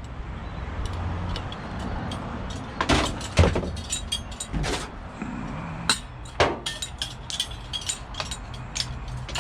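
Scattered knocks and clinks of scrap metal being handled, with a few sharper knocks, over a low steady rumble.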